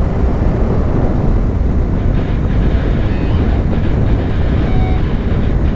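Train rolling past: a steady, loud rumble of wheels on rail.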